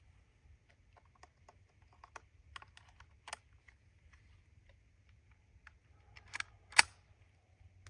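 Small metallic clicks and clacks of a Winchester Model 77 .22 semi-automatic rifle being loaded and its action worked by hand: a scatter of light clicks over the first few seconds, then two sharper clacks about half a second apart near the end, the second the loudest.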